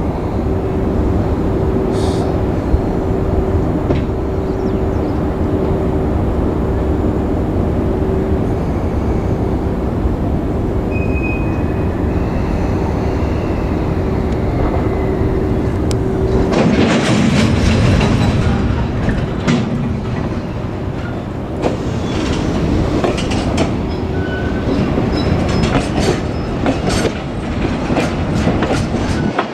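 Electric-hauled freight train passing close by: a steady heavy rumble of wheels on rail with a held hum, then from about halfway the clickety-clack of wheels over rail joints, the clicks coming quicker toward the end.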